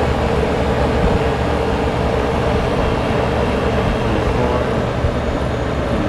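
Packaged rooftop HVAC unit's indoor blower running steadily. The compressor and condenser fan are not running, because the contactor is getting 24 volts but has not pulled in: a bad contactor.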